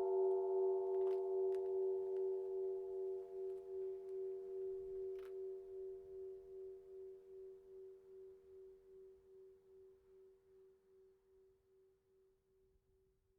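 Church bells dying away after the last strokes: the upper tones fade within a few seconds while the low hum pulses about twice a second and sinks to nothing near the end.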